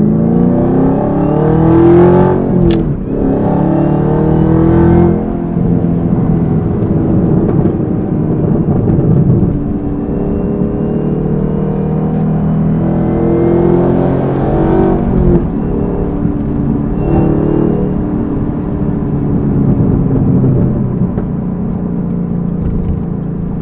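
Chevrolet Camaro ZL1's supercharged 6.2-litre V8 pulling hard through an aftermarket cat-back exhaust and cold air intake. It revs up, breaks off for a shift a few seconds in, climbs again, then settles to steadier running, with a faint supercharger whine rising along with the revs. About two-thirds of the way through, another pull rises and drops off suddenly.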